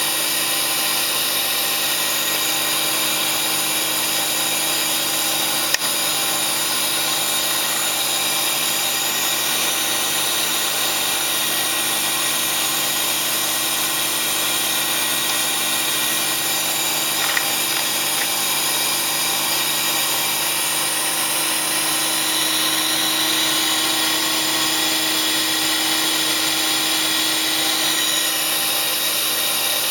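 Homemade circular-saw sharpening machine running steadily, its electric motor humming with a few steady tones under an even hiss. Two brief clicks come about six seconds in and again a little past halfway.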